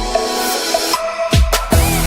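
Electronic background music with a steady beat and deep kick drum hits that drop in pitch.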